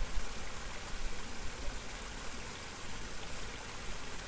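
River water flowing, a steady even hiss.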